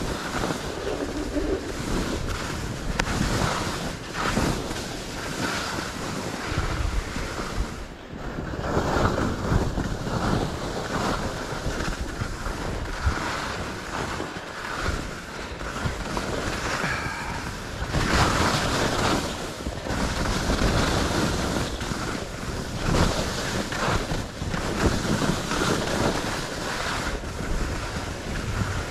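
Skis scraping and chattering over firm, chopped-up snow on a steep ski run, with wind rushing over the microphone. The noise comes in uneven surges, with a brief lull about eight seconds in.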